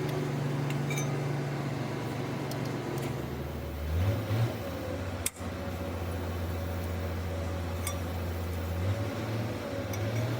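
An engine running steadily at idle. Its note drops about three seconds in and swells briefly twice, and a sharp click comes about five seconds in.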